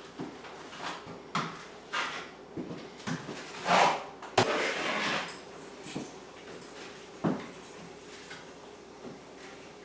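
Drywall knife scraping and tapping as joint compound is skim coated onto a wall, in irregular short strokes, with a longer, louder scrape about four seconds in.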